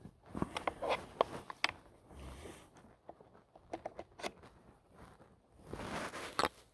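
Scattered clicks, taps and a short scrape of hands working a cordless chainsaw's plastic chain tensioner and bar while the chain is being adjusted, the saw not running.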